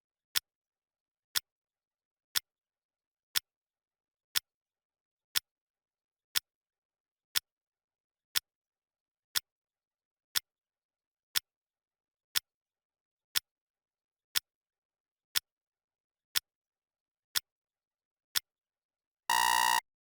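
Clock ticking, one sharp tick a second, as a countdown timer runs down. Near the end, the finish alarm sounds: a rapid run of beeps about half a second long, marking the countdown reaching zero.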